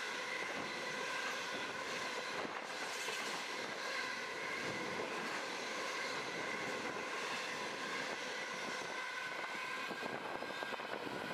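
Loaded grain hopper wagons of a freight train rolling past at speed: a steady rush of steel wheels on rail, with a few faint steady high tones running through it.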